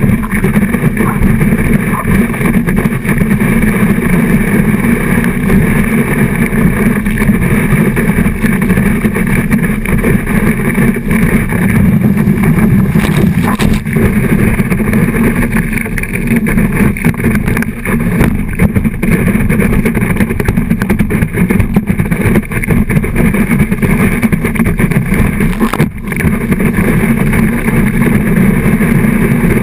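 Loud, steady, muffled rush of wake water and wind at speed on a kneeboard, picked up by a board-mounted GoPro HD Hero 2 inside its waterproof housing. Under it runs the steady drone of the tow boat's motor.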